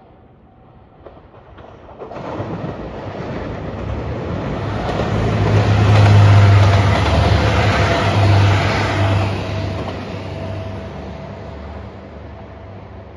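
JR Shikoku 2700 series diesel limited express passing: diesel engine drone and wheel-on-rail noise build up, are loudest about six seconds in, then fade as the train moves away.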